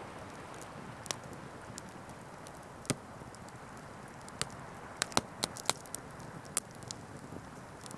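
Irregular sharp cracks and snaps of dry pine fatwood, bunched together about five seconds in, over a steady wash of ocean surf.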